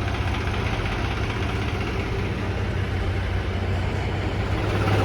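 Turbocharged diesel engine of a New Holland 3630 tractor running steadily, a low even hum that grows gradually louder.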